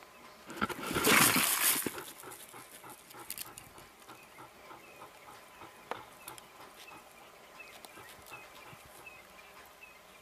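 Leopard and crested porcupine facing off: a loud, harsh burst of animal sound about a second long, followed by lighter scuffs and clicks. Faint high chirps repeat regularly in the second half.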